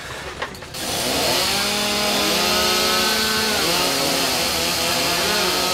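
Gas-powered Partner rescue saw (cut-off saw) cutting through the bus's sheet metal, starting under a second in and running loud and steady, its pitch sagging and picking up again as the blade bites.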